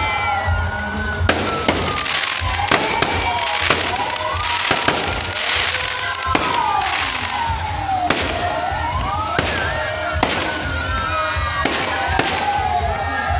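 Aerial fireworks bursting overhead: frequent sharp bangs over a steady crackling hiss. Behind them a wailing tone rises and falls over and over.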